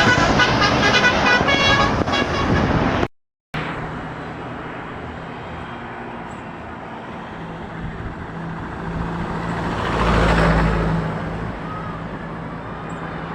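A bus's 'telolet' multi-tone musical air horn plays a stepping melody, then cuts off abruptly about three seconds in. After that comes steady road traffic with a low engine drone, and a heavy vehicle passes close by, loudest near the end.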